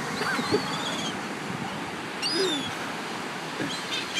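A flock of birds squabbling over scattered french fries, giving short squeaky, wavering calls now and then over the steady wash of surf.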